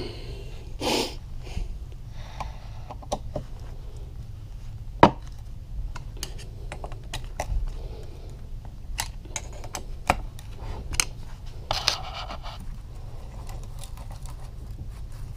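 Hand tools being handled at a workbench: scattered small metal clicks and taps, one sharper knock about five seconds in, and brief rustling about a second in and again near twelve seconds.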